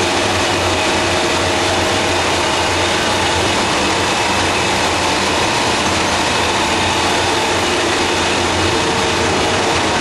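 Steady machinery noise from a paper machine's stock-preparation equipment, with electric motors and pumps running: an even hiss over a constant low hum and a few steady tones.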